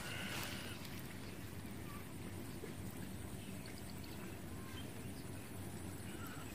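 Outdoor background noise: a steady low rumble, with a faint brief higher sound just after the start.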